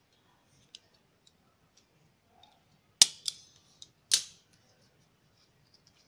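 A handheld stapler snapping shut twice, about a second apart, driving staple pins into folded plastic craft ribbon. Faint ticks of the ribbon being handled come before.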